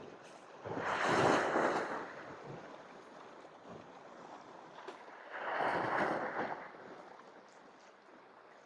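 Sea waves surging against shoreline rocks, two swells a few seconds apart, each rising and falling over about a second and a half.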